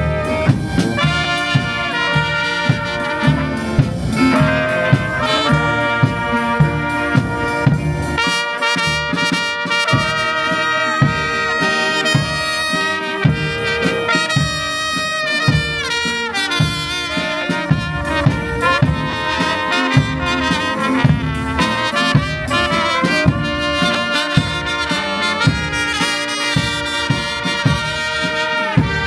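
A brass band playing, trumpets and trombones carrying the tune over a steady beat.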